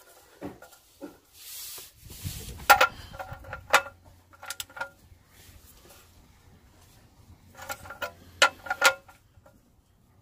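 Ratchet wrench clicking in several short runs as it tightens the oil drain plug on the sump, each click ringing slightly. There is a brief rustle about two seconds in.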